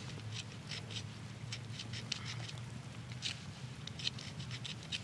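Flint blade scraping back and forth across antler to score a groove: a steady run of short, scratchy strokes, about three a second.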